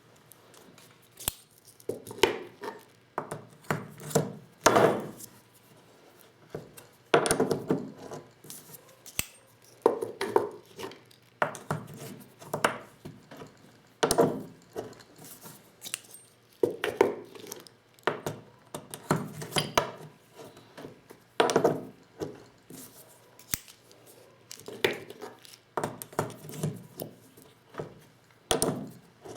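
Hand-reloading 12-gauge shotgun shells with a Lee Loader hand tool set: clusters of sharp knocks and clatter as the tool parts and shells are handled and struck, coming every two to three seconds.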